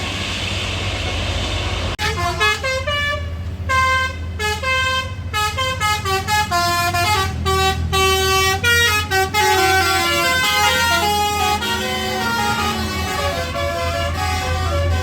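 Basuri telolet bus horn playing a fast melody of short stepped notes, starting about two seconds in after a rush of road noise, over the low steady running of a bus engine.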